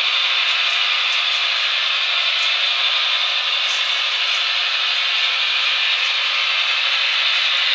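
Long model freight train, hauled by two model AC6000 locomotives, rolling up a track helix: a steady rushing hiss of many small wheels running on the rails, with a few faint ticks.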